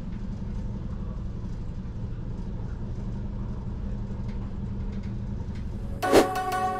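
Steady low rumble and hum of a BLS Lötschberger electric multiple unit running along the line, heard from inside the passenger cabin. About 6 seconds in, music with bell-like tones comes in over it.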